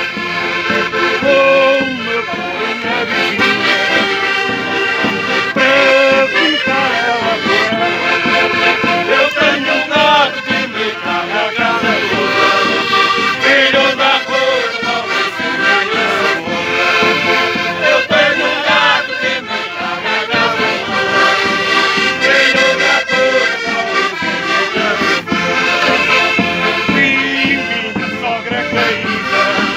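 Three diatonic button accordions playing a traditional Portuguese folk tune together, with a bass drum beating along.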